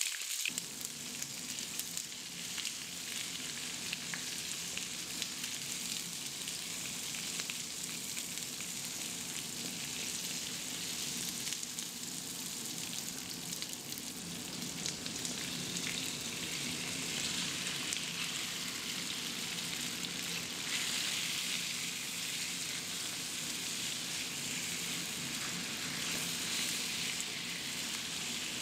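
Onion wedges sizzling in oil in a nonstick frying pan, stirred with a wooden spatula. About halfway through, marinated chicken pieces are tipped into the pan and the steady frying continues.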